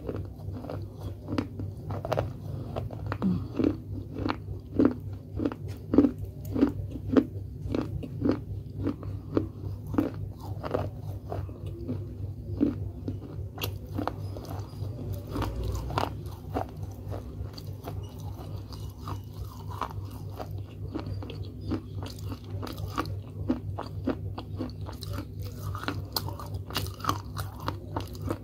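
Close-up crunching and chewing of a mouthful of clay from an edible clay pot: a steady run of sharp, gritty crunches, about two a second.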